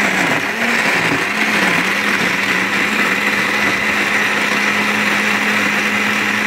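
Black+Decker countertop blender running at speed, grinding coconut pieces in water into coconut milk. Its motor hum wobbles in pitch for about the first two seconds as the chunks churn, then holds steady.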